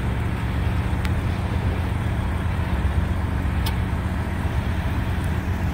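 An engine running steadily: a low, even hum with a couple of faint clicks.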